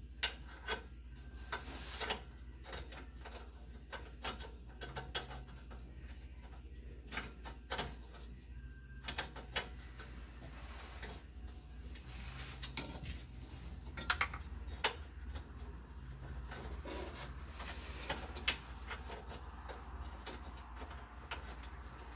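Hands fitting a new upstream oxygen sensor and handling its wire and plastic connector: scattered light clicks, taps and rubbing, over a low steady hum.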